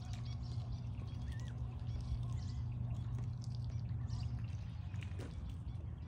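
Ducks dabbling in a plastic kiddie pool, with water splashing and dripping from their bills and small birds chirping, over a steady low hum.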